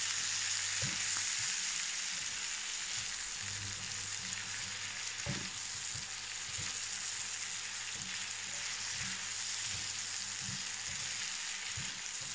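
Shrimp sizzling steadily in hot oil in a non-stick frying pan, with soft scrapes and taps now and then as a silicone spatula stirs them.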